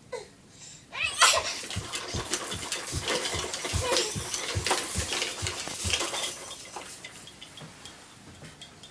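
Baby bouncing hard in a toy activity jumper: rhythmic thumps about two to three times a second with the plastic toys clattering and rattling, opened by a short squeal. The bouncing dies away after about five seconds.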